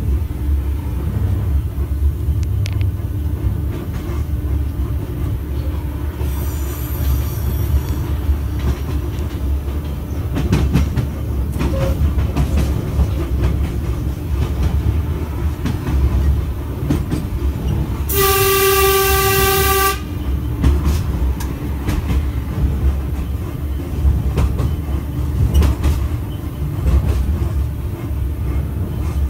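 81-717.5 metro train running on open track, heard from the driver's cab: a steady low rumble with scattered rail-joint clicks. A little past the middle comes one horn blast of about two seconds.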